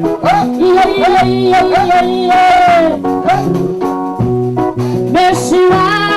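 Live gospel worship song: singing over a band with bass and keyboard, a long sung note about two seconds in.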